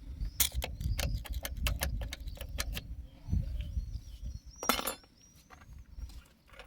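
Worn O-ring drive chain of a moped being wobbled by hand, its metal links clinking and rattling in a quick run of sharp clicks, with a louder scrape near the end. The chain is badly worn and loose, its rubber O-rings seemingly gone.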